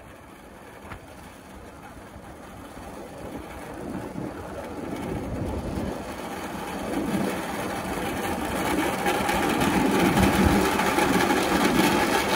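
Maddoxjets Cyclone 50 pulsejet engine running on the moving jet skateboard, heard as a rough buzzing noise mixed with wind and road noise, growing steadily louder.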